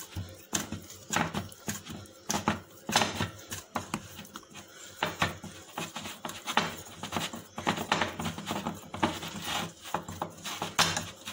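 Stiff flour dough being kneaded by oiled hands in a glass bowl: irregular soft knocks and thuds, about one or two a second, as the dough is pressed and turned against the glass.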